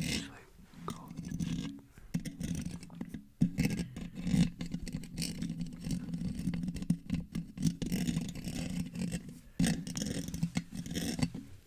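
Fingers scratching and rubbing directly on a microphone wrapped in plastic wrap, close-up ASMR mic scratching. It is a continuous run of irregular scratchy strokes over a low handling rumble, with louder bursts around four and a half and ten seconds in.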